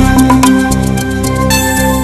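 Background music: calm new-age style with sustained held notes over a bass line, the chord changing about halfway through.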